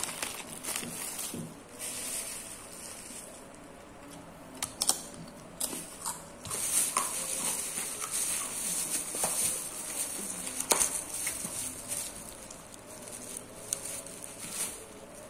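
Eating sounds at a table. A plastic bag rustles as krupuk crackers are tipped out, then come scattered crunches and clicks as the crackers are broken and eaten with rice by hand, over a steady faint hiss.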